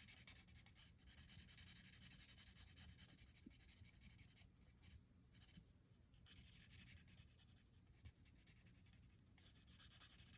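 Faint scratching of a colouring tool on paper, rapid back-and-forth strokes as an area is filled in, with a few brief pauses.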